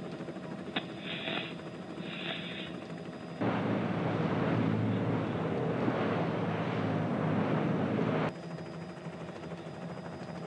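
Steady engine hum with wind noise, then, for about five seconds from a sharp cut, a much louder rush of wind and water as a racing trimaran passes close at speed, cutting back to the quieter hum.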